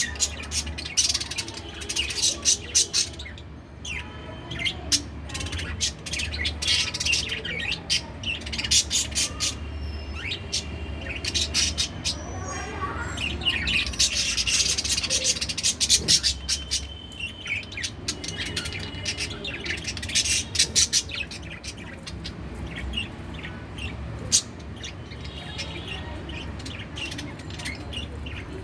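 Pet budgie (budgerigar) chattering with rapid, high-pitched chirps and warbles, some louder squawky notes among them, over a low steady hum.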